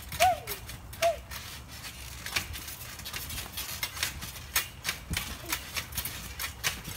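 Trampoline springs and frame creaking and clicking irregularly, two or three sharp clicks a second, as children bounce on it.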